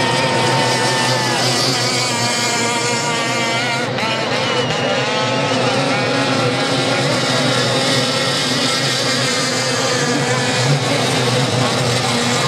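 Several racing outboard engines on hydroplanes running at full throttle together, a high, buzzing whine whose pitches hold and then dip and rise as the boats race and turn.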